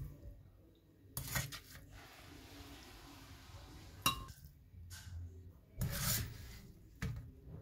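Kitchen utensils scraping and knocking against dishes while food is moved into a blender jar: a few sharp clinks and scrapes with short rubbing in between.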